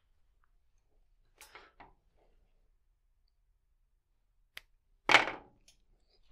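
Tennis racquet string being handled and pulled through the frame: faint rustles and a click, then one loud, quick swish of string drawn through just after five seconds in.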